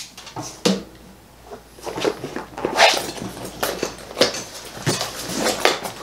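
Hand tools and a tool bag being handled: a series of short clicks, knocks and rustles as a small screwdriver is set down and the bag's pockets are rummaged.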